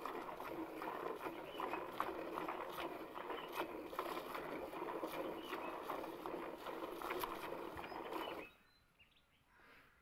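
Cow being milked by hand: thin jets of milk squirt from the teats into a plastic bucket of frothy milk in a quick, uneven run of hissing squirts. The squirting stops abruptly about eight and a half seconds in, and near silence follows to the end.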